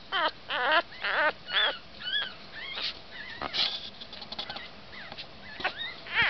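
Havanese puppy whimpering and squealing: a run of short, high-pitched cries that slide up and down in pitch, fainter for a couple of seconds in the middle and louder again near the end.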